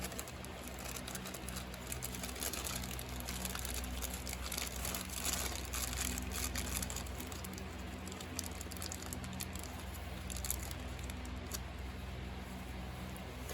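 Rustling and crinkling with many small irregular clicks, from handling the lock-knob kit's small parts and packaging, over a steady low hum.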